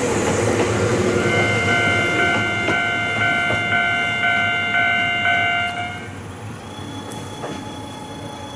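Ohmi Railway electric train pulling out, its running noise fading as it goes. Over it a ringing tone pulses a bit under twice a second until about six seconds in, then stops.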